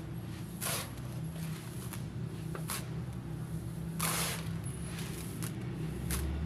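Crumbly concrete being crushed, giving several short gritty crunches at irregular intervals, the longest and loudest about four seconds in, over a steady low hum.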